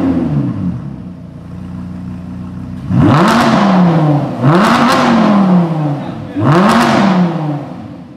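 Lamborghini Huracán V10 with its factory race exhaust, just started: the start-up flare falls away to a steady fast idle, then the engine is revved three times, each rev climbing quickly and sliding back down.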